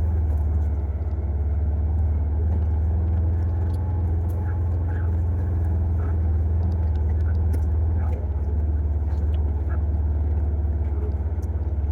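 Vehicle engine running with a steady low drone while driving along, with a few faint clicks and rattles over it.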